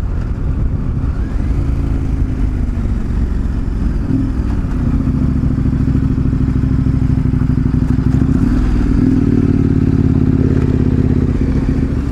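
Large adventure motorcycle engine running as it is ridden, its note shifting about four seconds in, then holding steady, and rising a little around eight to nine seconds.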